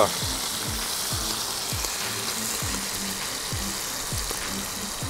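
Smelt frying in hot oil in a cast-iron sadj: a steady sizzle. Background music with a steady low beat runs under it.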